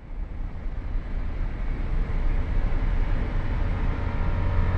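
Low rumble of a heavy truck and trailer on the road, with road and wind noise. It grows louder over the first couple of seconds, then holds steady.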